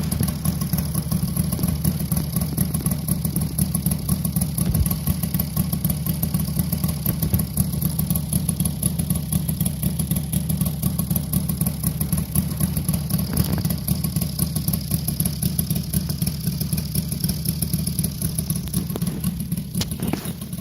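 Saito FG-60R3 three-cylinder four-stroke gasoline radial engine in an RC model aircraft, running steadily during its break-in run.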